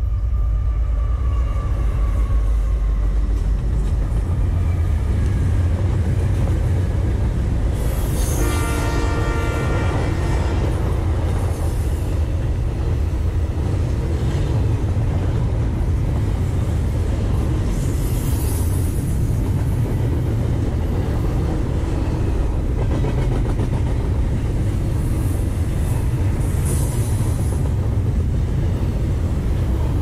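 Norfolk Southern diesel freight locomotives and a double-stack intermodal train rolling past on the rails, with a heavy low rumble and rail clatter. A multi-chime locomotive air horn sounds once for about two seconds, some eight seconds in. Brief high wheel squeals come twice later on.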